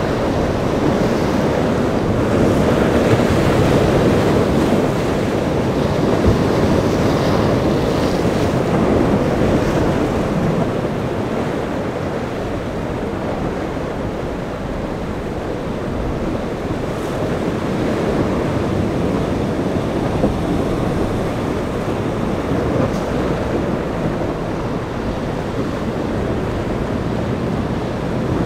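Steady rush of breaking surf, with wind buffeting the microphone.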